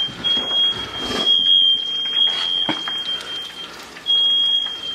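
Kitchen smoke alarm sounding: one shrill, steady high tone that keeps going with only brief breaks and drops out for under half a second about three and a half seconds in. Faint kitchen clatter underneath, with one sharp knock about halfway.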